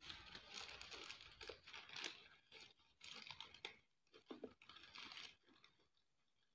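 Faint crinkling and rustling of a paper dress and netting veil being handled and arranged on a craft doll, in irregular bursts that die away near the end.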